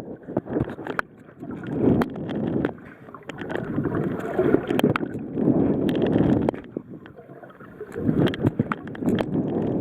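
Water sloshing and splashing around a kayak in uneven swells, with scattered sharp knocks against the hull.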